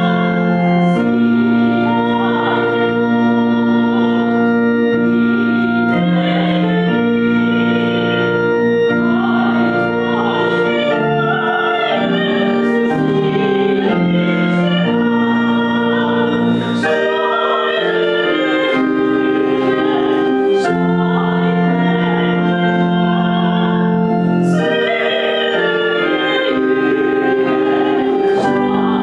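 Organ music with a singer: slow held chords that change every second or two under a sustained singing voice with vibrato, played as a processional.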